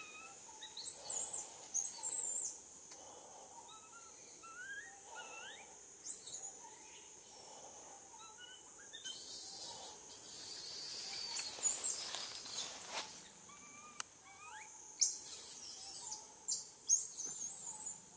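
Baby macaque giving high-pitched squealing and crying calls in several bouts, the longest about halfway through, between short rising calls. A steady high-pitched drone runs underneath.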